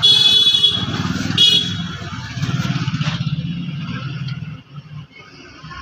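Street traffic: a motor vehicle engine running close by with a low, pulsing rumble that fades about four and a half seconds in. Two short, high-pitched horn beeps sound, one at the start and a shorter one about a second and a half later.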